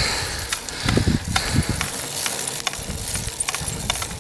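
Bicycle ticking and clicking in irregular light clicks, with wind buffeting the microphone in low gusts about a second in.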